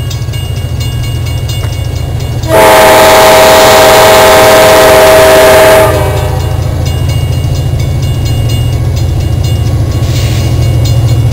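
Diesel freight locomotive's air horn sounding one long, very loud blast of several notes at once, lasting about three seconds, over a steady low rumble.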